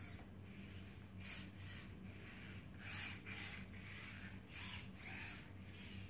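Robi humanoid robot's servo motors whirring in short bursts as it walks backward, the bursts coming mostly in pairs about half a second apart, one pair per step.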